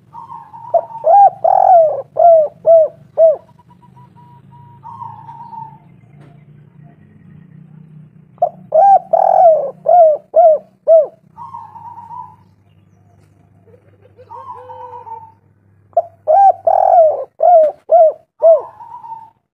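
Spotted dove cooing: three loud phrases, each a run of five or six short falling coos. Softer rolling coos come between the phrases.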